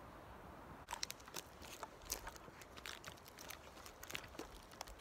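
Irregular crunching and crackling of footsteps on dry forest litter, starting about a second in.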